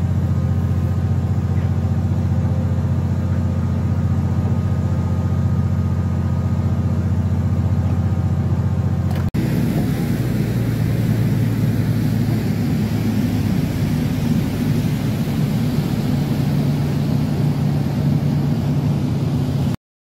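Fishing boat's engine running steadily with an even hum. About nine seconds in it changes abruptly to a rougher engine run with more hiss, then cuts off suddenly just before the end.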